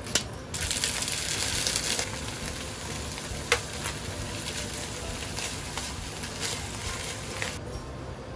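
Onions and canned tuna sizzling in oil in a frying pan. The sizzle starts abruptly about half a second in, is loudest for the first second or so, then settles to a steady sizzle and cuts off shortly before the end, with one sharp knock about three and a half seconds in.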